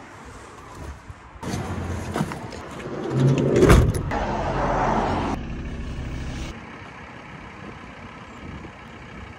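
Car and road-traffic sounds over several abrupt cuts, with a brief loud swell about three and a half seconds in.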